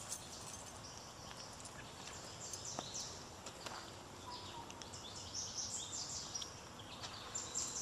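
Quiet outdoor background with faint, scattered high-pitched chirps and ticks.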